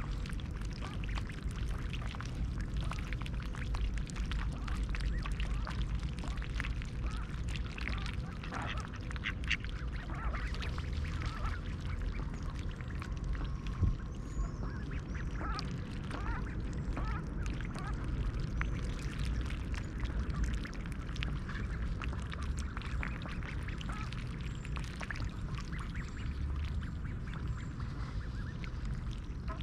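Mallards, a hen and her nearly grown brood, quacking at intervals while feeding on oats in the water, with many quick clicks from their bills dabbling. A steady low rumble runs underneath.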